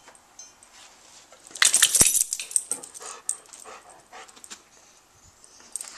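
Golden retriever moving about while being petted: a loud rustling burst with a sharp click about two seconds in, then quieter rustles and faint clicks.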